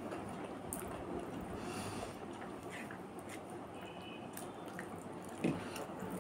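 Close, soft chewing and wet mouth sounds of someone eating rice by hand, with light squishing as rice is mixed with the fingers on a plastic plate. A short soft knock about five and a half seconds in.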